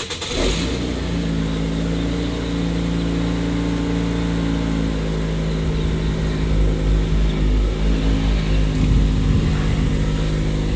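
Bass-heavy music played loud through a JL Audio 12W7-3 12-inch subwoofer in a ported box tuned to about 33 Hz: a run of held low notes over deep bass.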